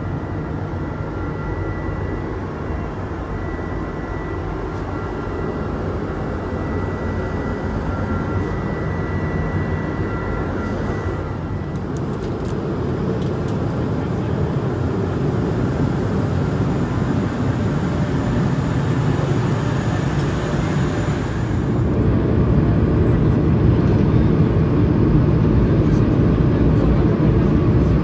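Steady roar of an Airbus A220-300 airliner in flight, engine and airflow noise heard inside the passenger cabin. A faint high steady tone sits over it for the first twelve seconds or so. It grows louder about two-thirds of the way through.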